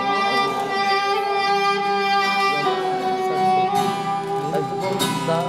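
Soprano saxophone playing a slow melody of long held notes, the pitch changing every couple of seconds, with a quieter, wavering accompaniment underneath.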